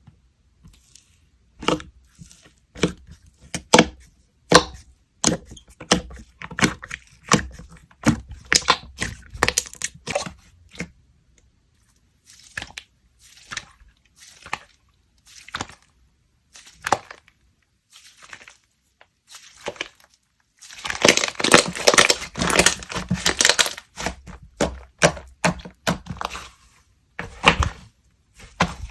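Borax-free slime being pressed and stretched by hand, giving irregular sticky pops and clicks. About 21 seconds in comes a dense run of crackling lasting about three seconds.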